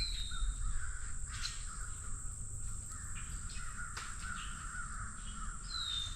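Agitated birds calling noisily with harsh, rasping calls, plus two short whistled notes falling in pitch, one at the start and one near the end. A steady high-pitched tone runs underneath.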